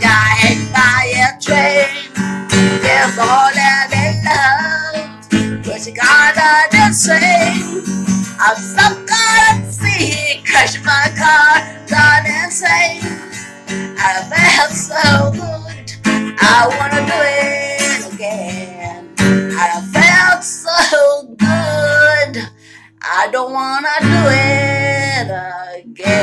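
A woman singing over a strummed steel-string acoustic guitar, the strums cutting in sharply between sung phrases; near the end she holds one long note.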